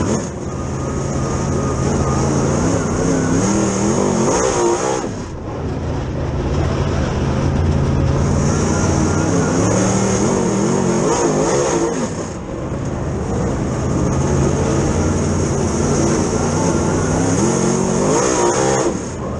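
Super Late Model dirt race car's V8 engine heard on board at race speed. It drops off briefly and comes back on three times, about five seconds in, about twelve seconds in and at the very end, typical of lifting for the corners and getting back on the throttle down the straights.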